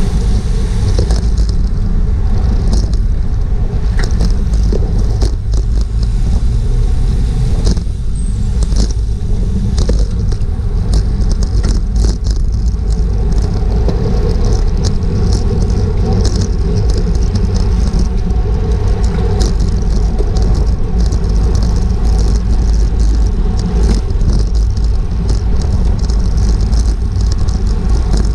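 Wind rushing over a GoPro's microphone on a racing bicycle at speed: a steady heavy rumble, with frequent small clicks and rattles on top.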